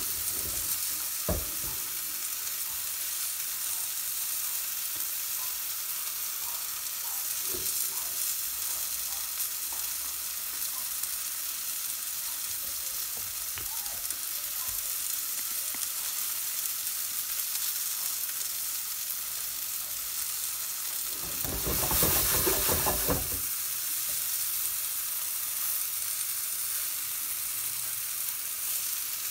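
Breaded chicken breast pieces sizzling steadily in hot oil in a non-stick frying pan on a medium gas flame. There is a light knock about a second in, and a louder rush of noise for about two seconds a little over twenty seconds in.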